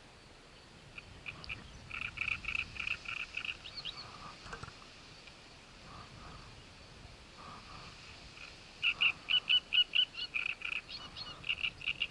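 A frog croaking in rapid runs of short, evenly spaced notes, about four a second. One run comes about two seconds in and a louder one about nine seconds in, with a few more notes near the end.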